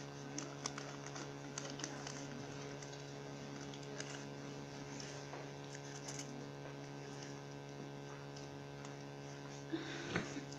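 Scattered clicks of a computer keyboard being typed on, over a steady electrical hum. A couple of louder knocks come near the end.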